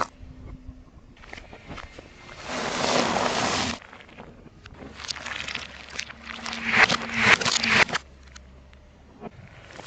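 A car tyre rolling over and crushing objects: a rushing burst a couple of seconds in, then a run of sharp crackling crunches lasting about three seconds, loudest near the end of that run.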